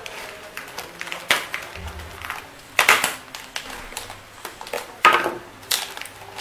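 Black plastic courier mailer being torn and pulled open by hand: crinkly plastic rustling with several sharp rips, the loudest about three seconds in and again about five seconds in.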